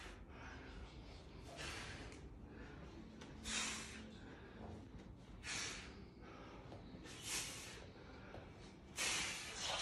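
A man breathing out hard in short exhalations, five times at about two-second intervals, in time with the reps of tricep dips.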